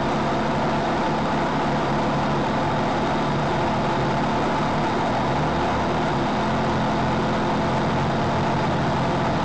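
Off-road car's engine running steadily, its pitch shifting slightly about halfway through.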